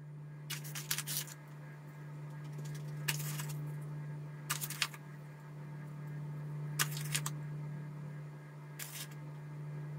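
Dried herbs being crushed and sprinkled from a small jar over a plate: about five short crackly rattles a second or two apart, over a low steady hum.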